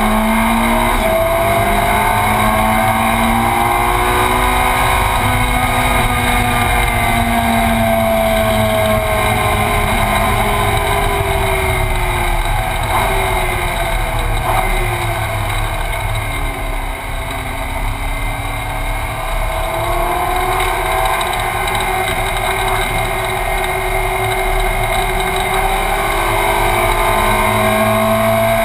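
Ferrari 458 Challenge's 4.5-litre V8 heard from inside the cockpit at speed, its pitch rising and falling as it accelerates, shifts and slows for corners. It runs briefly quieter a little past the middle as the driver eases off.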